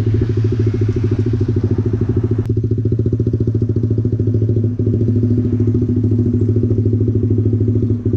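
Motorcycle engine running steadily at speed, heard from the riding bike, with wind rushing over the microphone. The wind hiss drops off sharply about two and a half seconds in, leaving mainly the engine.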